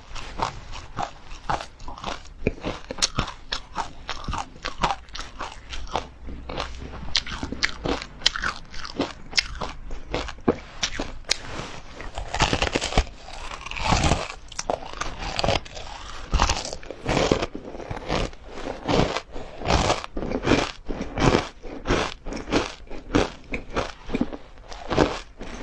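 Close-miked biting and chewing of an ice cream bar with a crunchy coating of black sesame seeds: dense, irregular crisp crunches and crackles, loudest and thickest around the middle.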